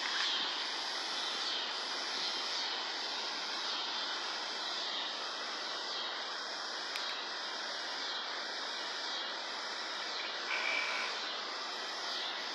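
Steady rushing outdoor background noise with no distinct event, overlaid by a faint high hiss that pulses about once a second; a short brighter sound near the end.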